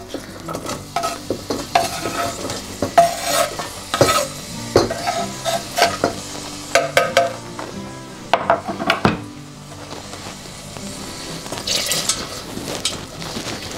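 Chopped onion, garlic and bay leaves sizzling in olive oil and butter in a stainless steel pot, with a knife scraping them off a chopping board and a spatula stirring and clinking against the pot. The sizzle grows stronger near the end as the onion starts to fry.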